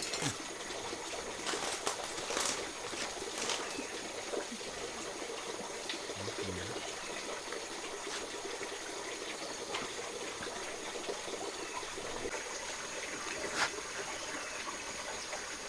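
Steady trickle of running water, with a few light knocks and rustles.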